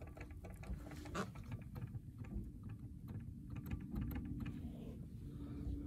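Faint, irregular small clicks and rubbery handling noises as the lower coolant hose of a stopped Yanmar 2GM20F diesel is squeezed by hand to purge air from the freshly refilled cooling system.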